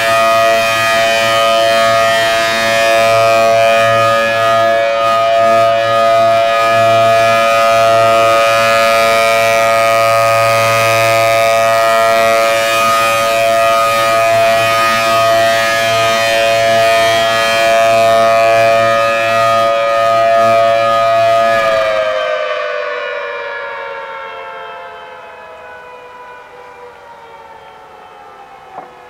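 Federal Signal Thunderbolt 1000T mechanical outdoor warning siren sounding a loud, steady tone at full speed. About 22 seconds in it shuts off and winds down, its pitch slowly falling as it fades.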